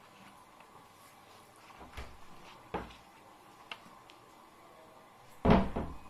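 Craft handling on a tabletop: a few light knocks and taps as a plastic glue bottle and paper are handled, then a louder thump near the end as the glue bottle is set down.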